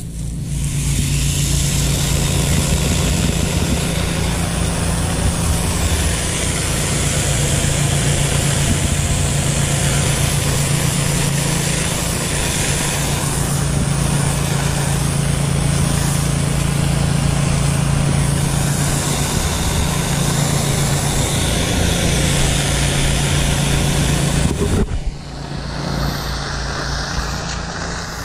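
Pressure washer running steadily, a low engine-and-pump hum with a fast even pulse under the loud hiss of the high-pressure water jet from the spray wand. About 25 s in the hiss and hum drop off and the sound goes quieter.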